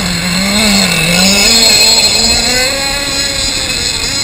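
Small two-stroke engine of a radio-controlled boat running at speed. Its note wavers, dips about a second in, then climbs steadily. The owner judges it to be running rich, with more power left in it.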